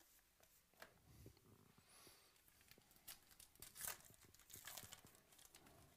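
Faint handling of a trading-card pack: a few light clicks of cards being shuffled, then the pack's wrapper torn open and crinkled, loudest about four seconds in.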